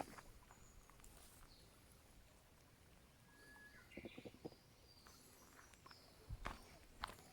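Quiet outdoor background with a hiker's footsteps on a forest trail: a few quick steps about four seconds in and a couple of heavier steps near the end. A short whistled bird call comes about halfway through, with fainter high bird calls just after it.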